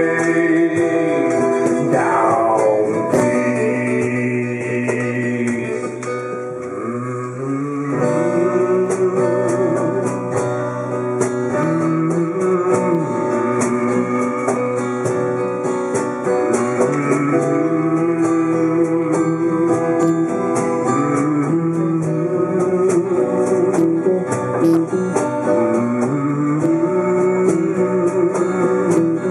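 A small live acoustic band playing a blues-tinged song, led by strummed and picked acoustic guitars, with a note sliding downward about two seconds in.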